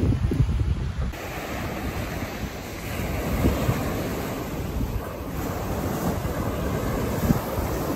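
Wind buffeting the microphone for about the first second, then small waves breaking and washing up a sandy beach, with wind noise on the microphone under the surf.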